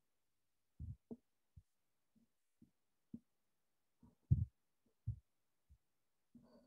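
A few soft, low thumps at irregular intervals, the loudest a little over four seconds in, with dead silence between them.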